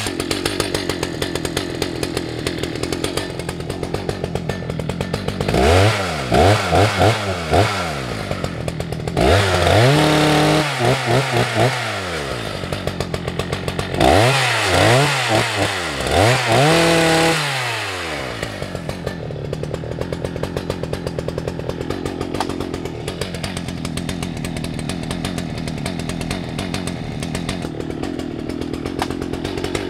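Husqvarna 181 SE two-stroke chainsaw idling, then revved in quick blips and twice held at high revs while cutting small pine stems, between about five and eighteen seconds in, before dropping back to idle.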